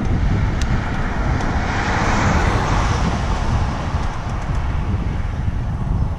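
Wind rumbling on the microphone, with the tyre noise of a passing vehicle swelling and fading about two to three seconds in.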